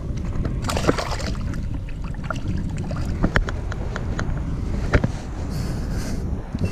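Water splashing as a small smallmouth bass is let go over the side of a kayak, about a second in, then a few sharp knocks as gear is handled in the kayak, over a steady low wind rumble on the microphone.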